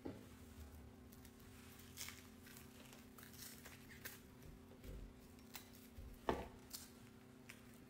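Quiet room tone with a low steady hum and scattered faint rustles and clicks, the loudest a single tap about six seconds in.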